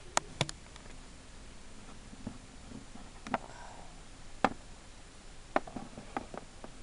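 A handful of sharp clicks and light taps as small plastic toy figurines are handled by hand and knocked against a plastic playset surface.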